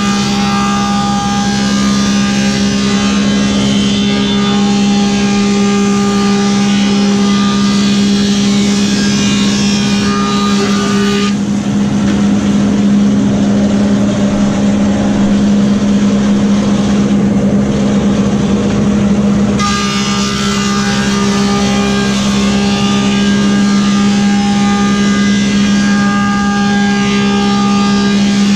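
Woodmaster 725 planer with a helical cutterhead running, with a steady hum throughout. A board feeds through and is cut for the first eleven seconds or so. The machine then runs free, more quietly, for about eight seconds. Cutting starts again on the next pass about two-thirds of the way in.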